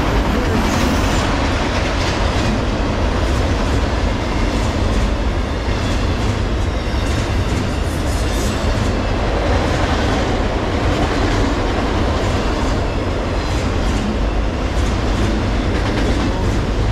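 Freight train of autorack cars rolling past close by: a steady, loud noise of steel wheels on rail.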